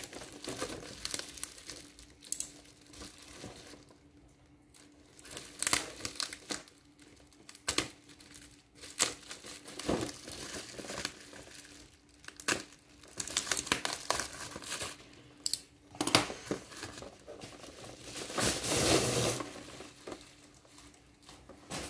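Bubble wrap being unwrapped by hand: plastic crinkling in irregular bursts, with a longer, louder stretch near the end.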